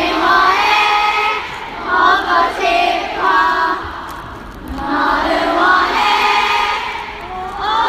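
A large concert crowd singing a song together in unison, with a short lull in the singing about four seconds in.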